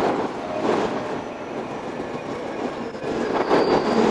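Shizuoka Railway electric train running on the rails, a dense clatter of wheels and running gear, heard sped up and played backwards. It dips a little in loudness through the middle and rises again about three seconds in.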